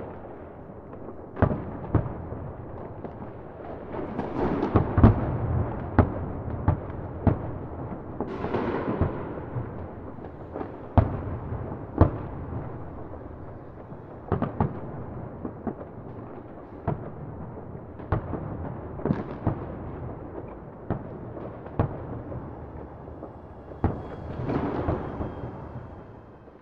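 A string of sharp bangs and pops at irregular intervals over a steady low rumble, fading out near the end.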